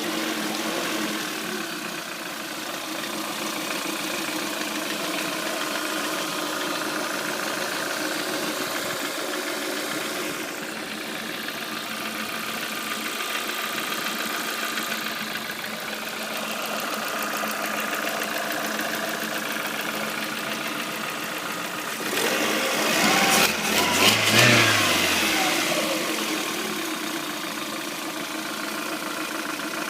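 Warm Lada Kalina 1.4 16-valve engine idling steadily, with an extra knocking sound that the owner hears and wants to get rid of. About three-quarters of the way through it is revved once, rising and then falling back to idle.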